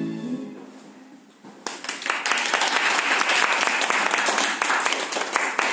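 Recital music ends on a fading final note, then an audience starts applauding about a second and a half in, a dense patter of clapping that continues.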